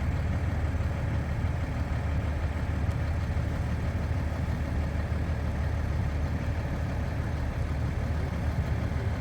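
A vehicle engine running steadily at a low, even speed, a constant deep rumble with no revving.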